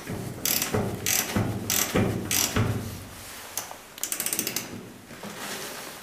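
Ratcheting box-end wrench turning the forcing screw of a door hinge pin puller to press out a stuck hinge pin: sharp clicks about every half second, then a quick run of a dozen or so ratchet clicks a little after four seconds in.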